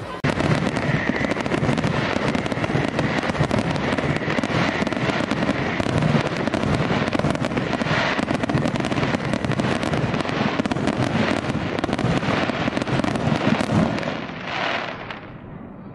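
Fireworks barrage: many aerial shells bursting in quick, dense succession as a rapid run of bangs and pops. It thins out and fades over the last two seconds.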